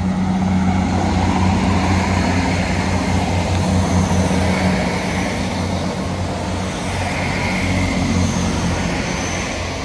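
Class 158 diesel multiple unit running past close by: a steady low diesel engine hum under wheel and rail noise, easing slightly near the end.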